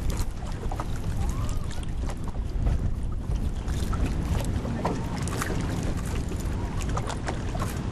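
Low, steady rumble of a motorboat running on a river, with water splashing and lapping against the hull in short clicks and splashes.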